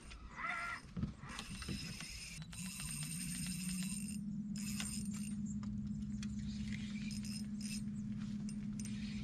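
Spinning reel being wound in short whirring bursts as a hooked fish is played on a light spin rod. From about three seconds in, a low steady electric hum rises briefly and then holds, from the boat's bow-mounted electric trolling motor.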